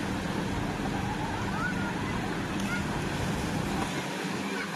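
Wave pool water churning and washing against the concrete wall over a steady low hum, with faint shouts and voices of many swimmers.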